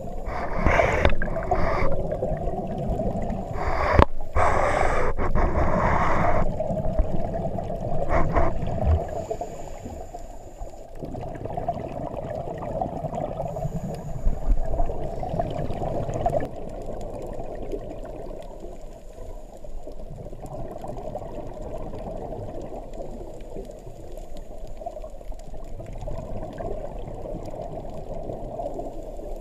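Scuba regulator exhalation bubbles underwater: several loud bursts of bubbling in the first six seconds and a short one near eight seconds, then a steady low underwater rush of water, muffled by the GoPro Hero3's waterproof housing.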